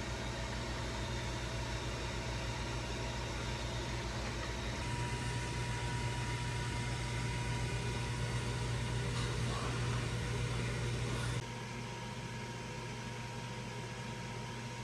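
Ninja countertop air fryer running as it preheats: a steady fan hum with a faint whine, which drops in level about eleven seconds in.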